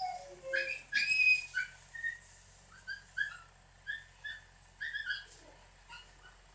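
Shiba Inu puppy squeaking and whimpering: a short falling whine at the start, then a string of brief high squeaks, loudest about a second in.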